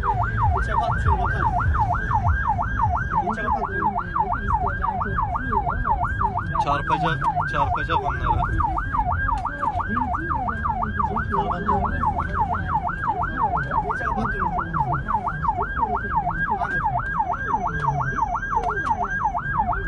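Emergency-vehicle siren in a fast yelp, sweeping up and down about two and a half times a second without a break, heard from inside a moving vehicle over engine and road noise.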